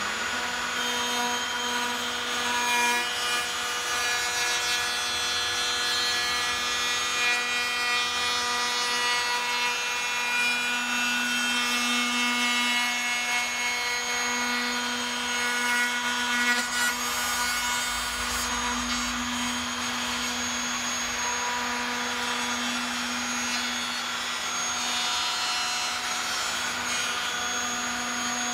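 Electric router running at a steady whine as its bearing-guided binding cutter cuts a 6 × 2 mm rebate into the wooden edge of a Telecaster body.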